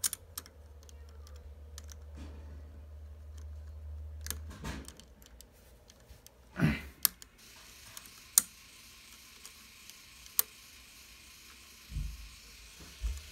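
Small clear plastic 3D crystal puzzle pieces clicking and tapping as they are handled and pressed together, with a few sharper, louder clicks in the middle and a low thump near the end.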